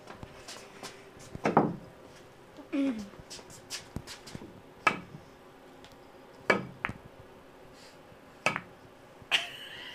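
Billiard balls clacking on a pool table as a cat paws at them: about half a dozen sharp, separate clacks a second or two apart.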